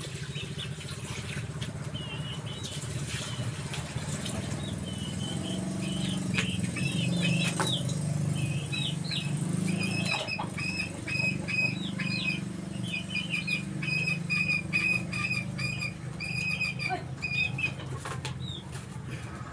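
A hand fan being waved hard at a wood cooking fire, a steady low rushing of air. Over it come many short, high bird chirps, most frequent in the middle.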